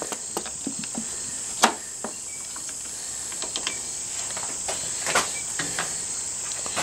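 Crickets trilling steadily and high in the background, with a few sharp clicks and light taps from handling a plastic brake-fluid bottle at the reservoir. The loudest clicks come about one and a half seconds and five seconds in.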